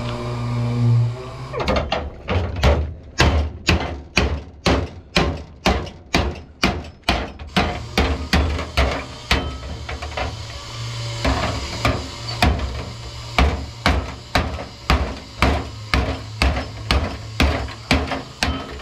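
Hand hammer striking the bent sheet-steel skin of an old Mercedes truck's accident-damaged cab door, panel-beating the torn edge back into shape. The sharp metallic knocks start about a second and a half in and keep an even pace of about three a second.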